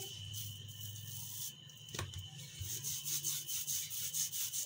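Wooden rolling pin rolling a round of dough on a stone countertop: a soft rubbing that comes in regular back-and-forth strokes, with a single click about two seconds in.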